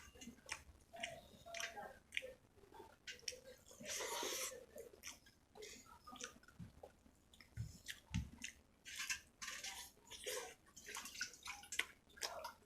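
Close-miked wet chewing and lip smacking while eating rice with chicken curry and gravy: many small, irregular clicks and squelches, with a longer rustling swish about four seconds in.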